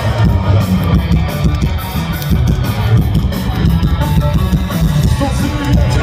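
Live rock band playing at full volume: a driving drum kit and guitars.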